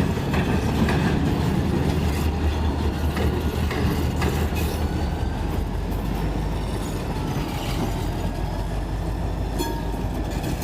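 Freight cars rolling past on the rails: a steady low rumble with wheel clicks over the rail joints and a faint high wheel squeal partway through.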